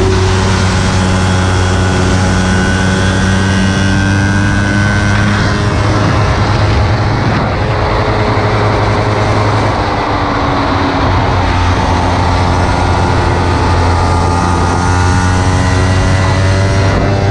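Kawasaki Ninja 300's parallel-twin engine running at high revs under steady throttle, heard from the bike with wind rushing over the camera. The engine note holds fairly even, dips about six seconds in and climbs gently again toward the end.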